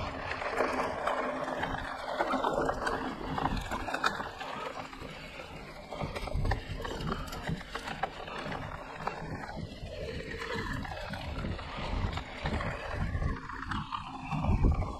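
Wind rushing over the microphone of a helmet- or chest-mounted camera, with the clatter of a mountain bike riding a rough dirt trail: frequent knocks and rattles, some made louder by the loosely strapped camera shaking.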